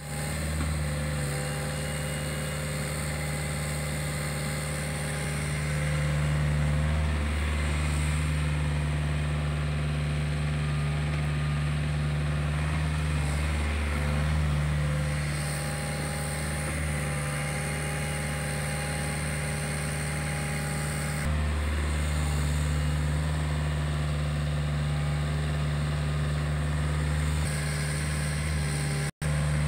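Hitachi ZX48U mini excavator's diesel engine running steadily under hydraulic load, a low hum that swells and eases as the machine works. It steps louder about five seconds in and again past the twenty-second mark.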